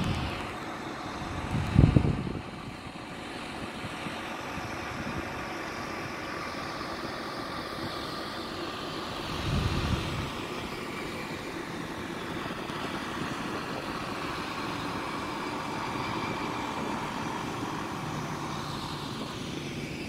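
MCI J4500 highway coach's diesel engine running as the coach pulls slowly across the lot: a steady drone with a whine over it. Two brief low thumps, the loudest sounds, come about two seconds in and again near ten seconds.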